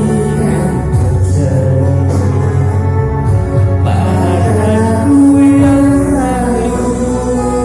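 A song playing: a melody over a steady bass, with one long held note about two-thirds of the way through.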